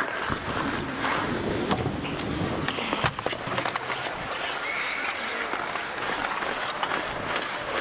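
Ice hockey skate blades scraping and carving on rink ice, with scattered sharp clacks of sticks and puck; the sharpest clack comes about three seconds in.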